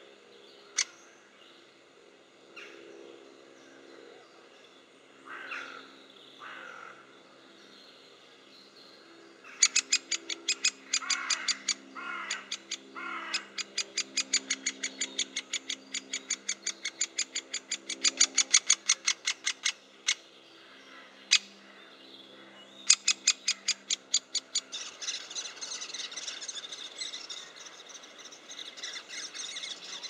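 Great spotted woodpeckers calling at the nest hole: a fast run of sharp "kik" calls at about four a second through the middle, with a few harsher calls falling in pitch in between. Near the end the calls give way to a continuous rasping chatter.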